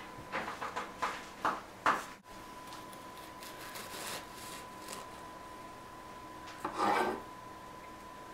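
Bread knife sawing through a freshly baked 100% whole wheat loaf on a wooden counter: a run of sawing strokes in the first two seconds and the loudest pass about seven seconds in, over a faint steady high tone.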